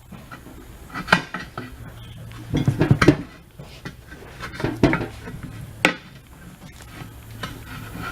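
Metal clanks and knocks from tire tools and the heavy wheel against the tire changer as a large armored-vehicle tire is forced off its rim. About five sharp clanks, the loudest around three and six seconds in, over a steady low hum.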